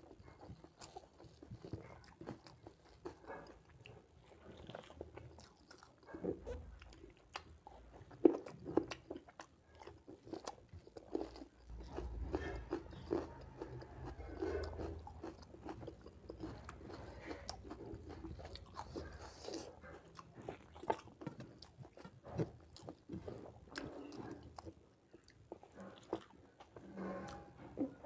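Close-miked chewing of a mouthful of rice and pork curry eaten by hand: a dense, irregular run of short clicks and mouth sounds, mixed with fingers gathering rice on the plate.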